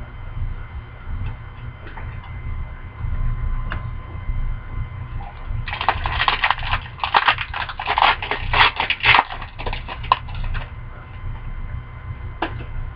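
Plastic trading-card pack wrapper crinkling as it is handled and opened: a dense run of crackling for about five seconds in the middle, with a few light clicks before and after.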